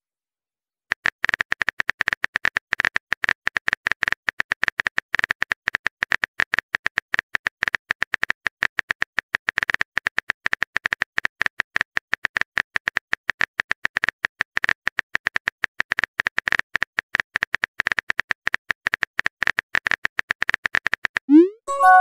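Keyboard-tap sound effect of a texting app: rapid, even clicks, one per typed letter, as a chat message is typed out. Near the end a short rising whoosh as the message is sent.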